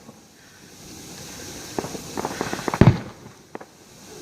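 Fireworks bursting: a quick run of sharp cracks about two seconds in, ending in the loudest bang, then one more crack a moment later.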